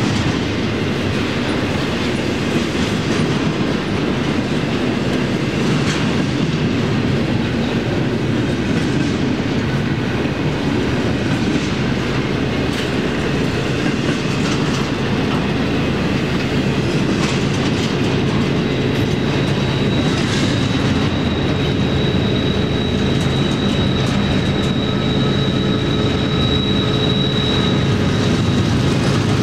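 Union Pacific intermodal freight cars rolling past with steady wheel-on-rail clatter. About twenty seconds in, a steady low diesel engine hum and a high whine join, as the rear distributed-power locomotive draws near.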